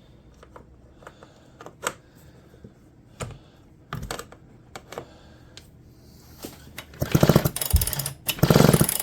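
Homelite EZ chainsaw's recoil starter pulled twice near the end, each pull a rapid rattling whirr of about a second as the engine turns over without firing, during a spark test. Before that, a few scattered light clicks and knocks of handling.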